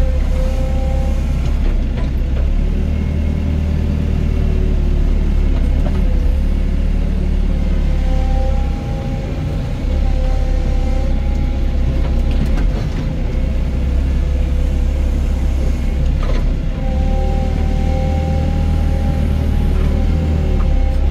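Doosan DX55 mini excavator's diesel engine running steadily under load, with a hydraulic whine that shifts in pitch as the arm and bucket move. A few sharp knocks of soil and stone.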